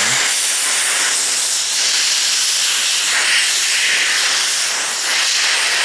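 Compressed-air blow gun hissing steadily as it blasts acetone off small cleaned bolts to dry them.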